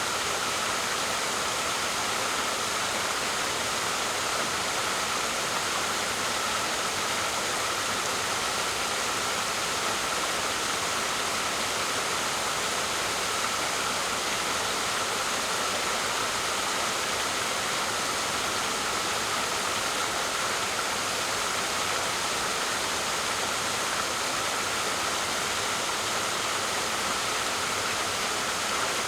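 Waterfall: a steady, unbroken rush of falling water, mostly hiss, with no change in level.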